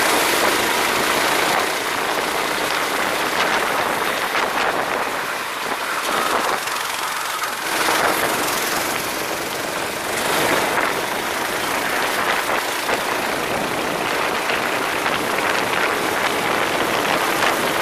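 Go-kart running on the track: a loud, steady rush of engine and road noise with no clear engine note standing out.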